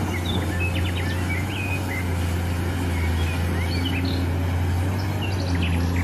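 Cat 390D hydraulic excavator's diesel engine running steadily with a low hum, with birds chirping now and then over it.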